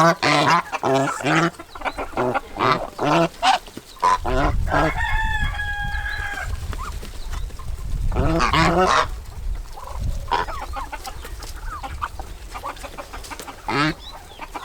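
Chickens clucking in a farmyard flock, with quick calls at first, one held call about five seconds in, and another burst of calls near the middle.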